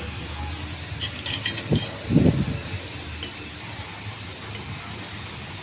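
Cutlery clinking a few times against a plate about a second in, over steady room noise.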